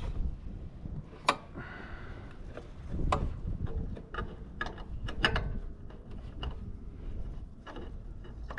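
Scattered light clicks and knocks of hand work, a second or two apart at irregular intervals, over a low rumble.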